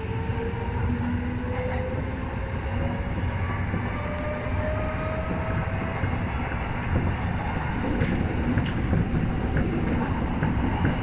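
Tokyo Metro Hibiya Line subway train running through a tunnel: a steady rumble of wheels on rail, with a motor whine rising slowly in pitch over the first six seconds or so as the train gathers speed, then fading out.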